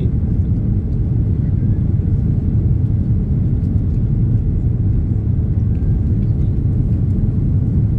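Steady low rumble of an airliner's cabin on its landing approach: engine and airflow noise heard from a window seat.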